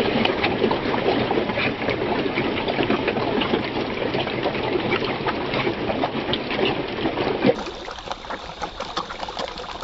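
A dense crowd of catfish thrashing and splashing at the water surface as they feed: a continuous churning splash made of countless small slaps and plops. It becomes quieter and thinner about three-quarters of the way through.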